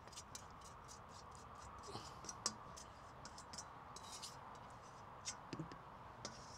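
Faint, scattered clicks and light scraping, with a sharper clink about two and a half seconds in and another a little after five seconds.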